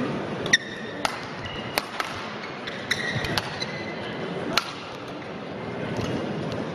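Badminton rally: racket strings sharply hitting the shuttlecock at irregular intervals, the sharpest about half a second in, with brief shoe squeaks on the court floor, over the murmur of a large hall.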